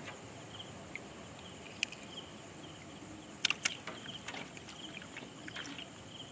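Faint night ambience with insects chirping in short repeated bursts. A few sharp clicks and knocks come from hands and a fishing hook against the side of a wooden boat; the loudest is a close pair about halfway through.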